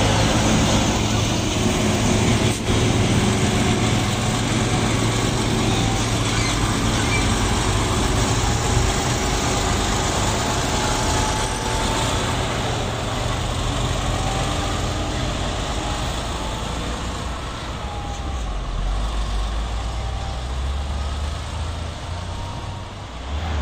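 Diesel engines of heavy tractor-trailer trucks running past at close range: a steady low drone over road noise that eases off a little near the end.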